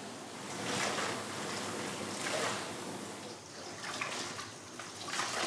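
Water splashing and trickling as yarn is washed by hand, in uneven swells with a few small knocks near the end.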